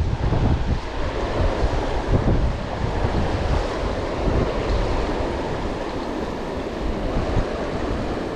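Fast river water rushing over rocks, with wind buffeting the microphone in a steady, gusty rumble.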